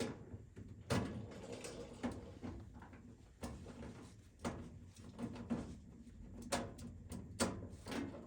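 Scattered clicks and knocks, roughly one a second, from a socket tool and hands working screws out of a Goodman furnace's sheet-metal cover.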